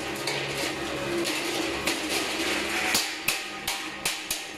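Corrugated steel roll-up shutter curtain rattling as it is worked by hand, then a run of sharp metal knocks, about three a second, in the second half.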